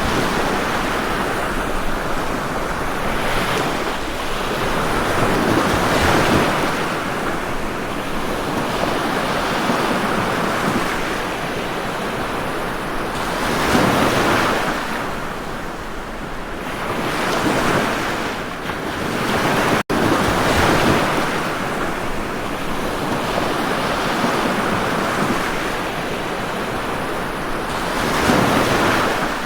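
Ocean surf: waves breaking and washing in, the rush swelling and fading every few seconds. A split-second dropout cuts the sound just under two-thirds of the way through.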